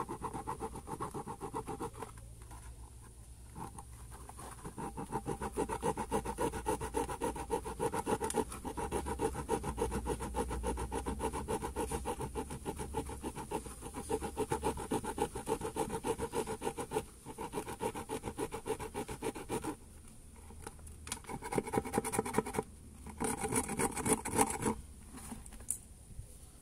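A saw blade rasping back and forth across the rim of an old plastic bucket, cutting through it in rapid, even strokes, with short pauses and a louder stretch of strokes near the end.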